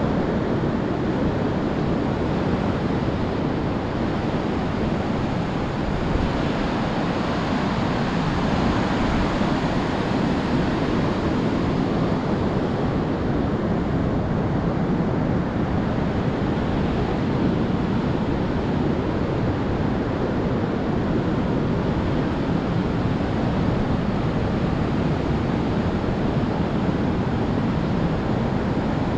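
Steady noise of ocean surf breaking on a sandy beach, mixed with wind buffeting the microphone, with an unbroken rumble and no distinct events.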